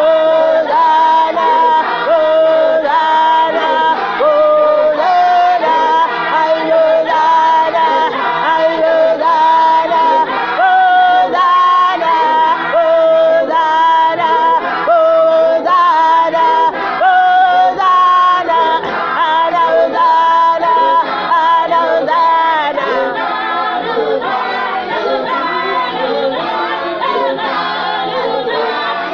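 A women's choir singing a gospel hymn a cappella, several voices holding and moving between notes in harmony. The singing eases off a little near the end.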